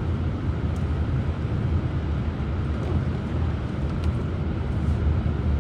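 Steady low rumble of a car driving on a snowy highway, heard from inside the cabin: engine and tyre noise.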